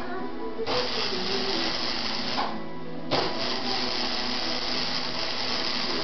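Flux-core wire-feed welder arc crackling and sizzling in two runs, the first starting about a second in and stopping briefly, the second starting about three seconds in.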